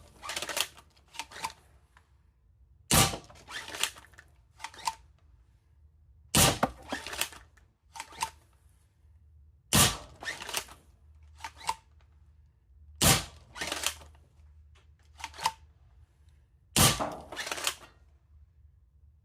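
3D-printed foam dart blaster firing Worker 1-gram darts, five sharp shots about three and a half seconds apart, with smaller clicks between shots.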